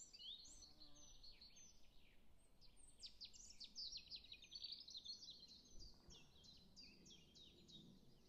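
Faint birds chirping and twittering, a quick, continuous run of short high chirps.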